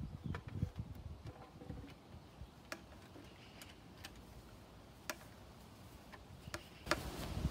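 Irregular light clicks and taps from handling survey equipment: a handheld data logger and its instrument case. A couple of faint bird chirps sound in the background.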